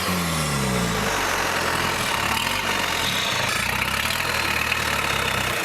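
Isuzu 2.8 four-cylinder turbo diesel running: its revs fall back from a throttle blip in the first second, then it settles to a steady idle.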